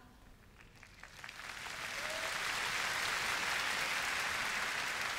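Large arena audience applauding, swelling in about a second in and holding steady.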